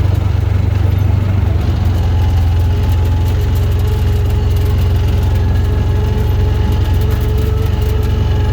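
Engine running steadily: a constant low rumble with a steady hum above it, the sound of a farm vehicle underway.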